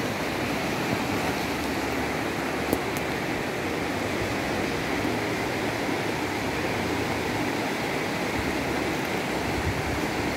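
Steady rush of a shallow river running over rocks and small rapids, with one short click about three seconds in.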